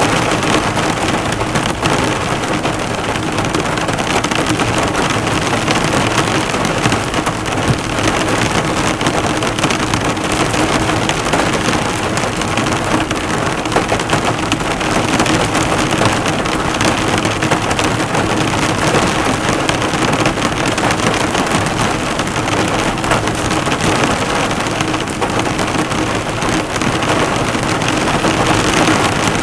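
Heavy rain falling on a car, the drops hitting the hood in a dense, steady patter.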